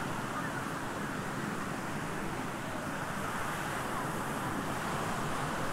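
Steady wash of small waves breaking on a sandy beach, mixed with wind on the microphone.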